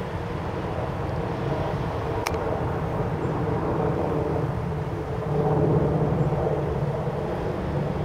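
Steady hum of road traffic, swelling a little near the end, with a single sharp click a little over two seconds in.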